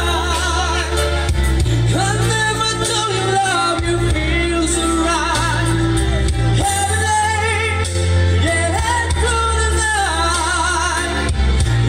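A solo singing voice holding long notes with wide vibrato over a backing track with a steady bass.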